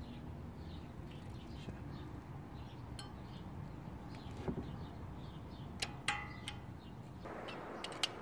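Needle-nose pliers clinking on a disc brake caliper's pad clip as the clip is pulled outward, away from the rotor it had been rubbing on. There are a few scattered sharp metallic clicks, the loudest pair about six seconds in, and a quick run of clicks at the very end.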